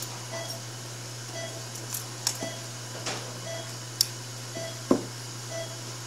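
Operating-room patient monitor beeping its pulse tone about once a second, six short even beeps over a steady low hum, with a few sharp metallic clicks from surgical instruments, the loudest about four and five seconds in.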